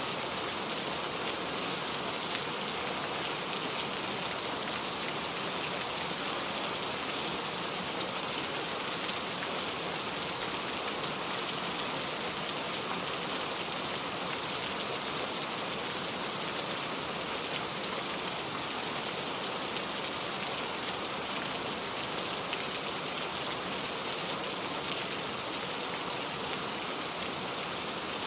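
Steady rain falling, an even hiss with occasional faint individual drop ticks.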